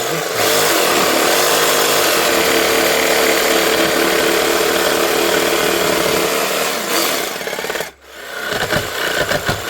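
Electric jigsaw running and cutting through a wooden board, steady for about eight seconds, then stopping and briefly running again near the end.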